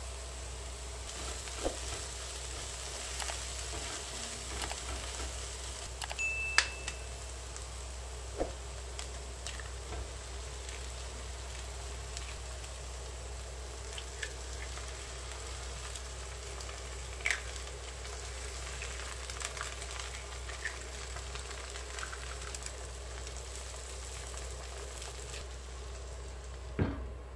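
Chopped spinach, onion and garlic sizzling steadily in oil in a nonstick frying pan, with a few sharp clicks and taps from the spoon and eggshells against the pan.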